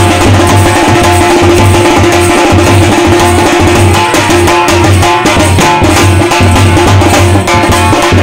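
Loud Indian folk-style music with heavy drumming: a low drum beat about twice a second, dense hand-drum and percussion strokes, and a long held melodic note over it.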